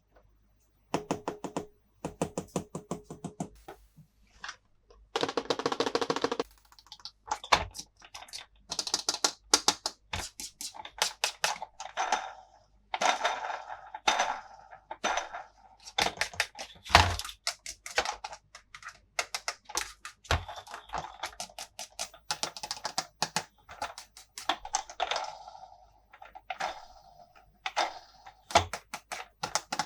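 Small hard plastic toy-playset pieces handled and clicked together, in quick irregular runs of small clicks and taps with a few louder knocks.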